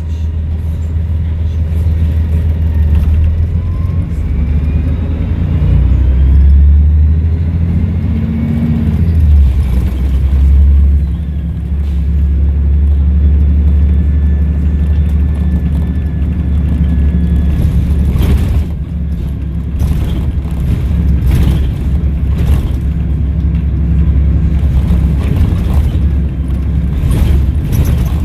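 Volvo B7RLE bus engine running with a low rumble, its turbo whistling faintly. The whistle rises in pitch over the first several seconds and holds steady midway. Short knocks and rattles come often in the second half.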